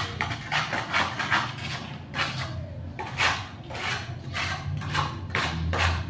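Repeated short scraping strokes of a hand trowel working wet concrete, about two a second and uneven in strength, over a low steady hum.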